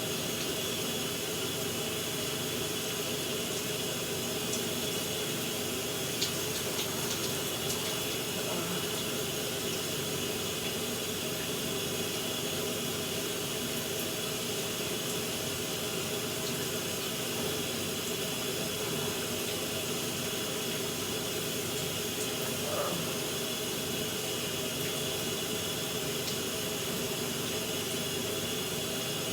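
Shower running steadily, the water spray making an even hiss. A short faint sound stands out about three quarters of the way through.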